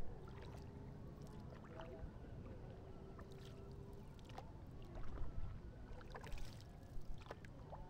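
A single-blade SUP paddle dipping and pulling through calm lake water beside the board, with small splashes and drips off the blade over a low steady rumble; the loudest splashes come about five and six seconds in.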